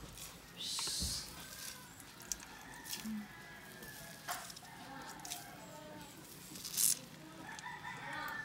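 A hand crushing and squeezing wet, pounded sambong and malunggay leaves against a stainless steel bowl, with two short wet, hissy squishes, one about a second in and one near the end.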